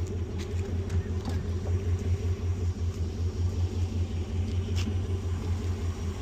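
Vehicle engine running with a steady, pulsing low rumble, with a few faint clicks over it.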